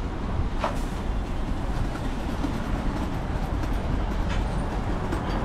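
Steady low rumble with an even wash of noise: city street ambience.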